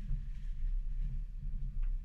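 Muffled, steady low rumble of a Subaru XV driving along a dirt track, heard from a camera mounted outside on its bonnet, with a few faint ticks.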